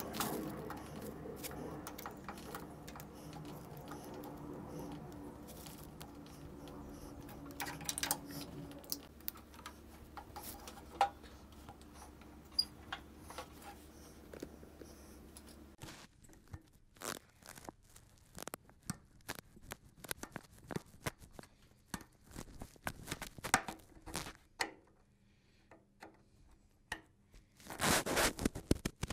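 Hands and pliers working a rubber fuel hose and its hose clamps onto an engine fitting: scattered clicks, scrapes and rustles. A steady background hum runs through the first half and stops abruptly about halfway. A burst of close rustling comes near the end.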